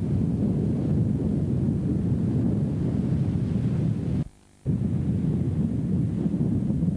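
Wind buffeting the camcorder microphone: a steady low rumble. It cuts out abruptly for about half a second a little over four seconds in, where the recording breaks between two shots, then carries on as before.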